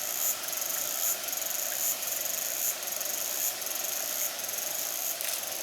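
High-pitched insect trilling in repeated pulses just under a second long, with short breaks between them, over a steady background hiss.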